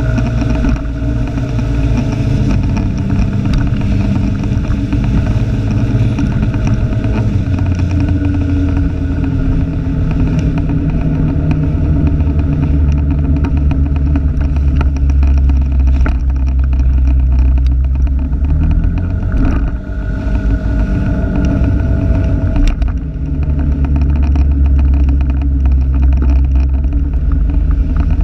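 Motor vehicle engine running on the move, its note shifting up and down with the throttle and dipping briefly twice, about 19 and 23 seconds in.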